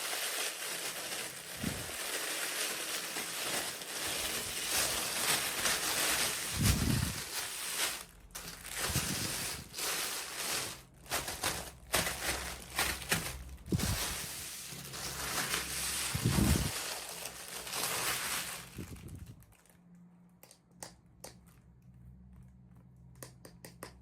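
Packaging crinkling and rustling as it is handled and opened, with a few dull thuds. Near the end it gives way to scattered light clicks and taps.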